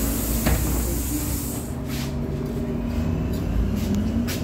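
Interior noise of a VMZ-5298.01 Avangard trolleybus under way: the steady whine of the drive and the rumble of the body, with a high hiss that cuts off about two seconds in and a sharp click near the end.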